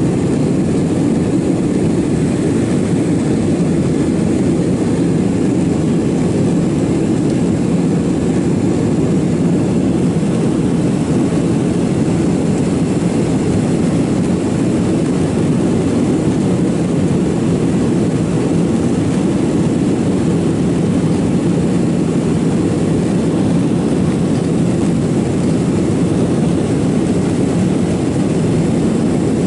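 Steady, even cabin noise inside a jet airliner climbing after takeoff: the engines at climb thrust, heavy in the low end, with a faint steady high whine above it.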